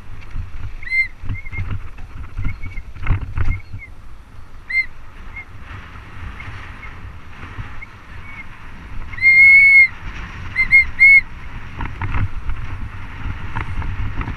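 Mountain bike brakes squealing in repeated short, high chirps, with one longer, louder squeal about two-thirds of the way through. Underneath are tyre rumble over the dirt trail and a few knocks and rattles.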